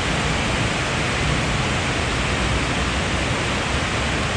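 Steady, even rushing noise with no breaks.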